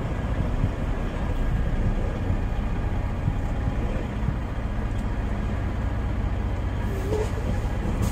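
Semi-truck engine and drivetrain running at low speed, a steady low rumble heard from inside the cab as the truck rolls slowly across a gravel lot.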